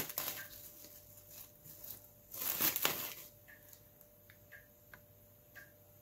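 Plastic cling film crinkling as it is peeled back off a bowl, in short rustles with the loudest about two and a half seconds in.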